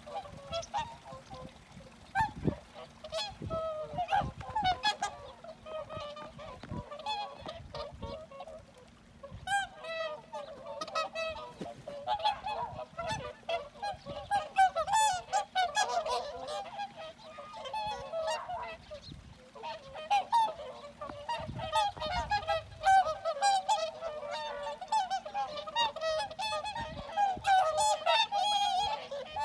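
A flock of swans calling continuously: many overlapping honking, bugling calls, growing busier about a third of the way in.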